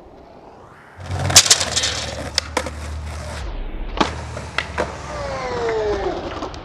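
Skateboard rolling over pavement, its wheels rumbling from about a second in, with several sharp clacks of the board hitting the ground. A high falling whine sounds around five seconds in.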